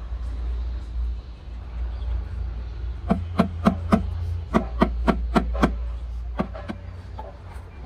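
Hammer striking a cast cement planter box, about ten quick sharp knocks in a couple of seconds with a brief pause, then two more, each with a short ringing clonk, over a low steady rumble. The planter is being knocked to free it from its mold.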